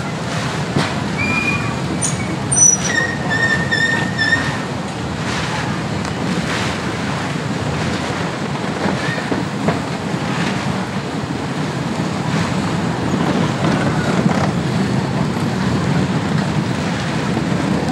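Street traffic noise: a steady rumble of passing motor scooters and cars, with a few short high tones between about one and four and a half seconds in.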